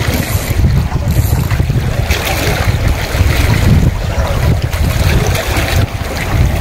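Gusting wind buffeting the microphone in a constant low rumble, with the hiss of small waves washing against harbour rocks swelling about two seconds in and again near the end.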